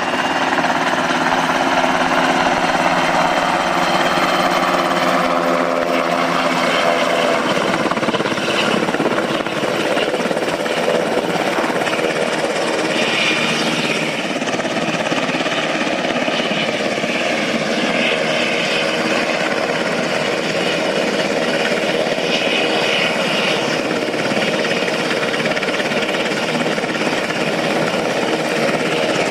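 UH-60 Black Hawk helicopter running, its rotor and twin turbine engines making a loud, steady din. A stack of steady engine tones is heard early and fades out about seven seconds in, leaving the broad rotor and air noise.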